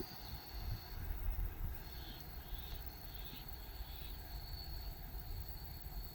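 Outdoor background: a steady high insect drone with a few faint chirps, over an uneven low rumble.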